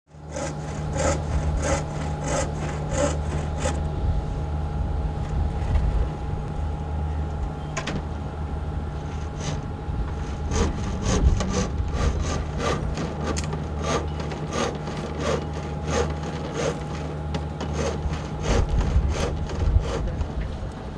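Low steady engine hum, as of a harbour boat's motor, with a faint steady whine above it. Over it runs a regular scraping or knocking stroke, about one and a half a second, that fades out for a few seconds after the first four and then returns.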